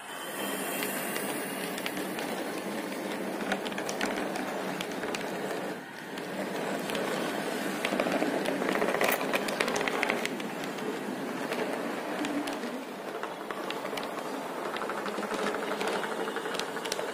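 HO scale model passenger coaches running on model track: a steady rattling roll of small wheels on rail, with frequent light clicks. It dips briefly about six seconds in and is loudest for a couple of seconds past the middle.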